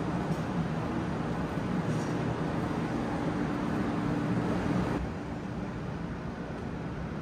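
Steady hum and hiss of a 500 series Shinkansen standing at a station platform, mixed with platform ambience; the hum drops a little about five seconds in.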